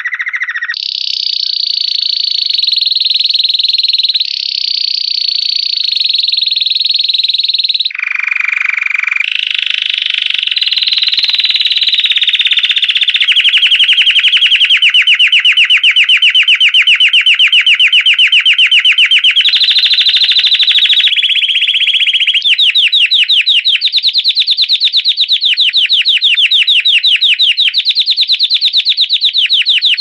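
Domestic canary singing a continuous 'campainha' (bell) song: high rolls and rapid trills, with the phrase changing every few seconds.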